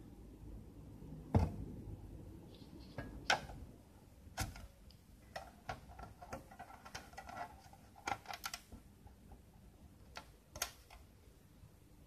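Scattered small clicks and taps, spaced irregularly, from a circuit board being handled as an axial capacitor's legs are bent over and the board is turned. The sharpest tap comes about a second and a half in.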